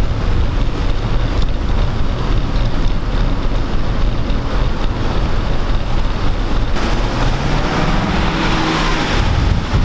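Wind buffeting the microphone of a rider moving on an electric scooter, a loud steady low rumble, with traffic underneath; the noise grows brighter and busier about seven seconds in.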